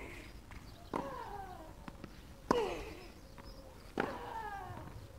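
A tennis rally: three racket strikes on the ball about a second and a half apart, each with a player's falling grunt as she hits.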